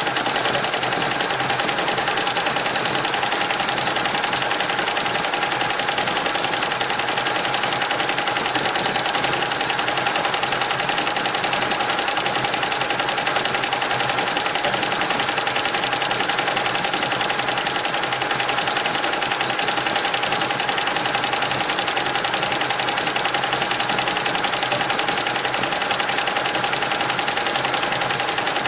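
Richpeace roll-to-roll computerised embroidery machine running steadily, its needle head stitching in a fast, even clatter with a steady tone underneath.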